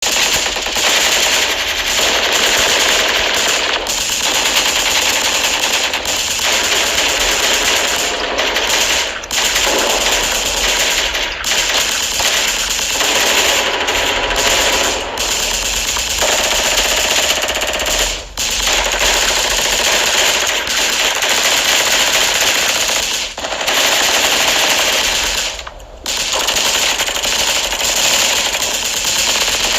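Machine-gun fire sound effect: long runs of rapid automatic fire, broken by a few brief pauses.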